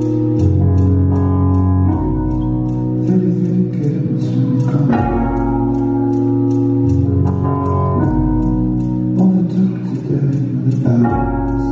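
Electric stage keyboard playing held chords over a low bass line, the chords changing every second or two. A light ticking runs under them about four times a second.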